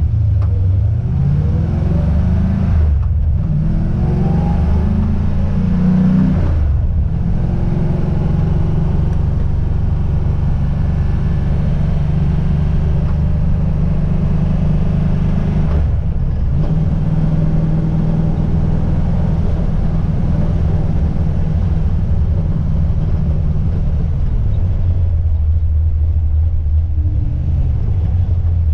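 Car engine pulling up through the gears, its pitch rising twice in the first six seconds with brief breaks between gears, then holding a steady pitch over road noise while cruising, and easing off near the end.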